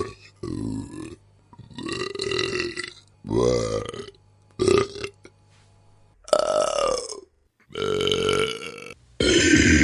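A string of human burps, one after another, about eight in all. They vary in length from short to over a second, and some slide in pitch, with brief quiet gaps between them.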